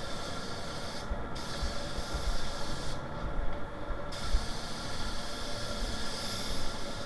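Siphon-feed air spray gun hissing as it sprays paint onto a car bumper, cutting off twice when the trigger is let go: briefly about a second in, and for about a second around three seconds in. A low, uneven rumble runs underneath.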